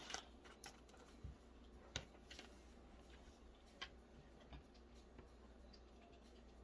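Near silence broken by a few faint taps and ticks, mostly in the first half: tarot cards being handled and laid on the table.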